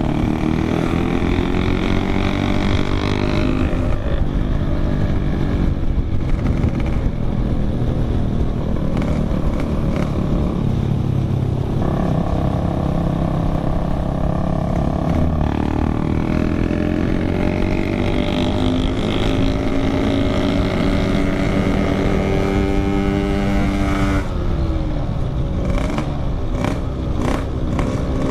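Yamaha RX-King single-cylinder two-stroke engine with a loud 'packing power' exhaust, ridden on the road. Its revs fall at the start, step at gear changes, climb steadily for several seconds, then drop off, with a few sharp crackles near the end.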